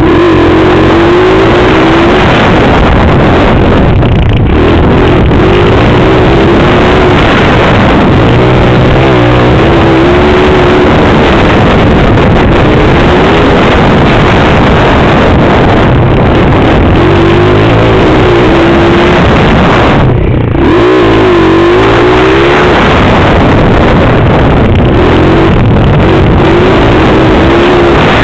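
Pit bike's single-cylinder engine revving up and down with the throttle, heard loud from a helmet-mounted camera, with a brief drop about twenty seconds in.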